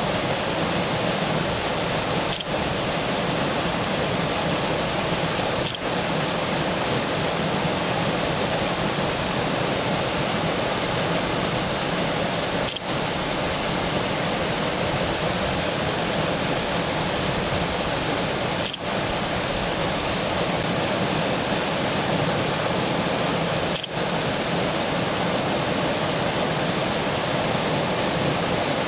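Steady rush of a small river pouring over a weir into a churning pool. The rush is broken by five brief dropouts.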